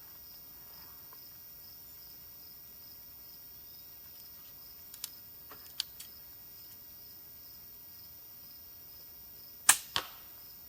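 WT-Mantis pistol crossbow, with steel limbs, being reloaded and fired: a few small clicks about halfway through, then a sharp snap of the shot near the end, followed a moment later by a second, softer knock. Crickets chirr steadily in the background.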